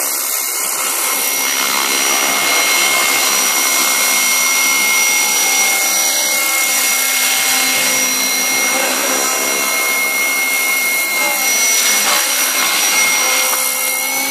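Electric 420-size RC helicopter (Devil 420) in forward flight: a steady, high motor and gear whine over the whir of the rotor blades.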